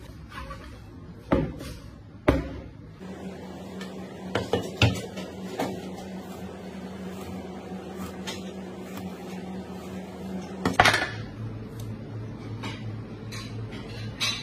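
Large curved chef's knife chopping slashes into a whole fish on a plastic cutting board: a series of sharp knocks as the blade strikes through onto the board, the loudest about eleven seconds in. A steady low hum sits under the middle part.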